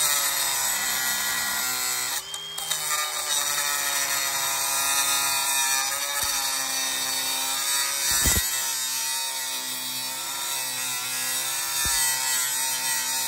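Cordless angle grinder with a cut-off wheel cutting through the rusted steel door of a coin box. The motor whine wavers in pitch as the wheel loads up in the metal, with a couple of brief low knocks later on.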